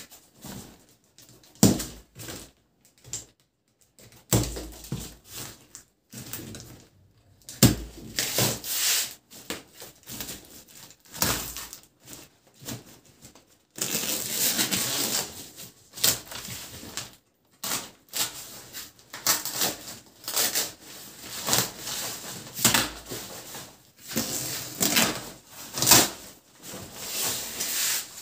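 Woven plastic sack wrapping and plastic packing straps being cut with a blade and torn open by hand from a cardboard carton: irregular crinkling, rustling and tearing with many sharp clicks, busiest in the second half.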